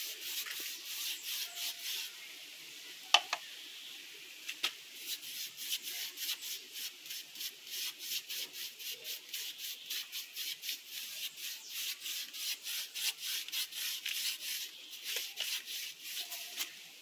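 Paintbrush scrubbing varnish onto a rough textured mortar surface: rhythmic scratchy brush strokes, a few a second. The strokes pause about two seconds in, and a single sharp tap falls during the pause.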